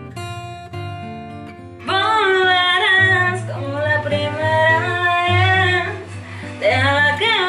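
Music: acoustic guitar playing, with a woman's singing voice coming in about two seconds in.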